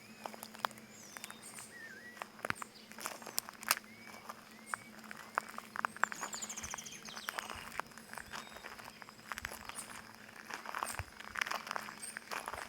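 Footsteps crunching over stones, irregular and heavier near the end, while small birds call with short chirps and one quick high trill.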